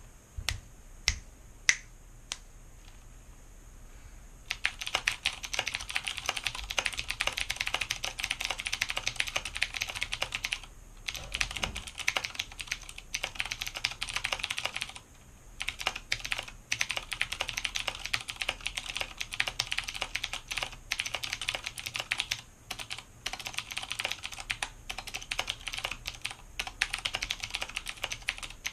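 Fast typing on a mechanical keyboard set on a cloth mat: a few separate sharp clicks over the first few seconds, then continuous rapid key clatter at about 80 words a minute, with short breaks.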